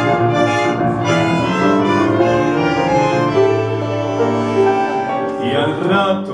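Small live ensemble playing an instrumental passage: violins with double bass and piano, in long held notes over a moving bass line. A brighter, fuller texture enters about five and a half seconds in.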